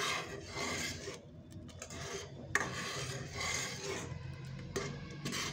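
Steel ladle scraping and rubbing against a steel pot while stirring a thick carrot halwa mixture, in uneven strokes with a few light clinks.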